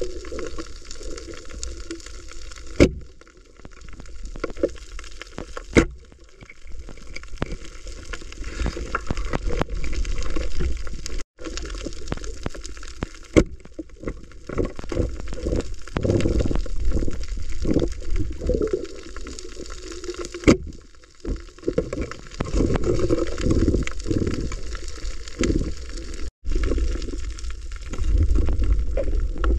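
Muffled underwater water noise with bubbling and gurgling, dotted with short knocks and clicks. Twice it drops out to silence for a moment.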